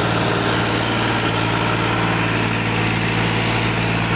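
Powertrac Euro 50 tractor's diesel engine running steadily at a constant speed.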